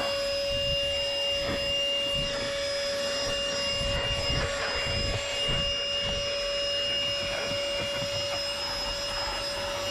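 Handheld portable car vacuum cleaner running steadily with its bare nozzle, no attachment fitted: a constant motor whine over the hiss of the suction.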